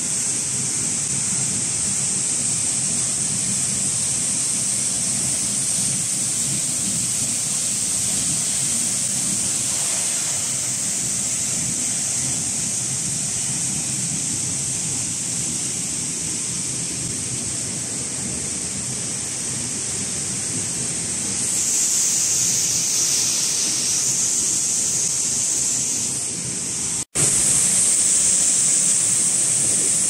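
Waterfall plunging onto rocks: a loud, steady rush of falling water. The sound breaks off for an instant about 27 seconds in and comes back slightly louder.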